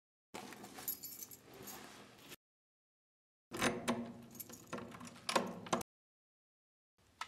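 Small metal objects jingling and rattling in two short bursts, with a stretch of dead silence between them.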